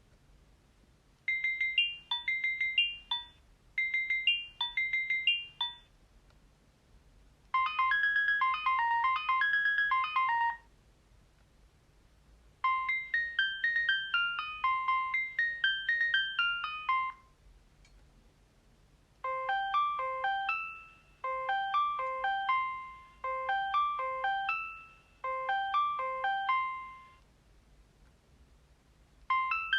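Alcatel OT 735 mobile phone ringtones: several short electronic melodies played one after another, with pauses of one to two seconds between them and a new one starting near the end.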